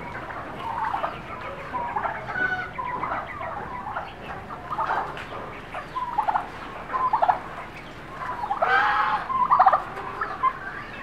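Native chicken clucking and squawking in short calls, with a louder, longer squawk about nine seconds in.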